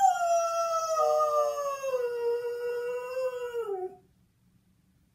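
Borzoi howling: one long howl that slides slowly down in pitch and stops about four seconds in.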